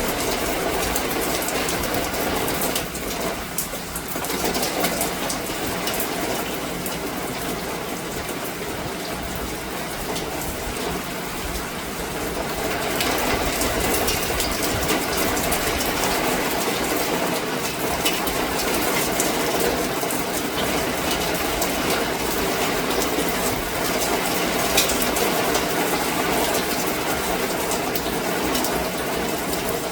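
Steady downpour of rain: an even hiss with many small drop ticks, a little louder from about 13 seconds in.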